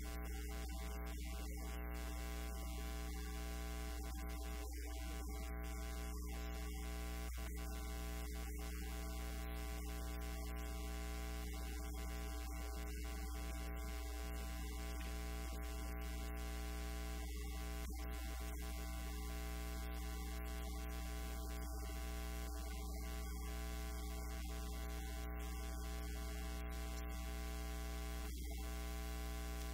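Steady electrical mains hum: a deep, unchanging drone with a stack of higher buzzing overtones, a fault in the audio recording that covers everything else.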